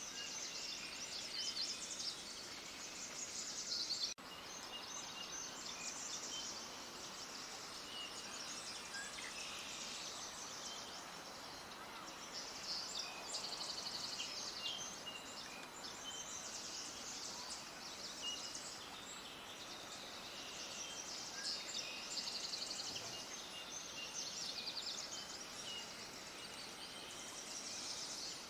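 A chorus of many small songbirds chirping and trilling, dense and overlapping, over a steady outdoor background hiss, with a brief dropout about four seconds in.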